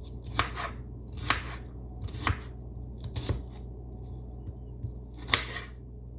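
A kitchen knife chopping an onion on a cutting board: five sharp chops about a second apart, with a pause before the last one.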